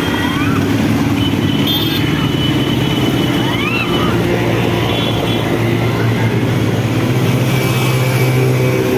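An engine running steadily at a constant pitch, with a few short high chirps and voices faintly in the background.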